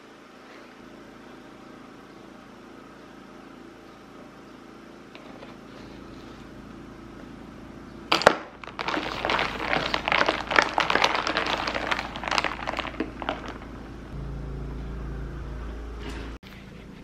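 Ice rattling and clattering inside a plastic tumbler of iced coffee for about five seconds as the creamer is mixed in, starting with a sharp knock about eight seconds in. A steady low hum follows, then cuts off suddenly.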